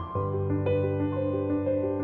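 Calm instrumental background music: a new chord with a low bass comes in just after the start, with a note above it changing about every half second.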